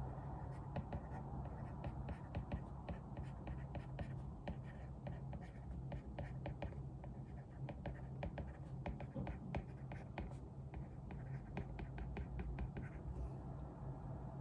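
Pen writing on paper: a run of short scratchy strokes with small pauses, over a steady low room hum.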